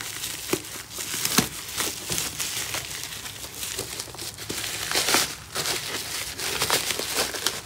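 Black plastic parcel wrap and bubble wrap being pulled open by hand: continuous crinkling with many short, sharp crackles.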